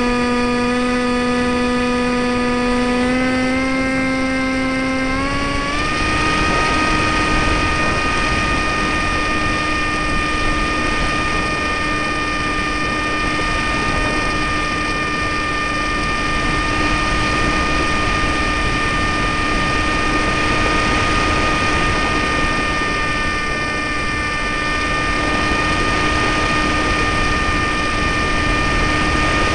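A Top Gun Stratos RC plane's electric motor and propeller whining, heard from the camera on board. The pitch steps up about three times in the first six seconds as the throttle is opened for take-off and climb, then holds a steady whine with wind rushing over the microphone.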